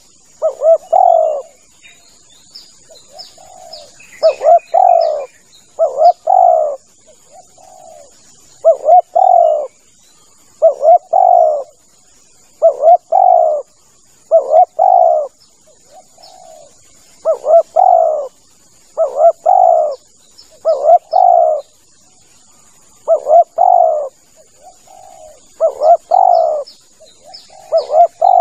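Spotted dove (tekukur) cooing: a phrase of several low coos repeated about every two seconds, used as a lure call to draw in wild doves. Faint chirps of small birds and a steady thin high whine, likely insects, run underneath.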